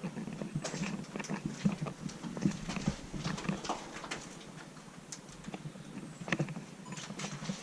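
Footsteps: irregular scuffs and knocks, a few a second.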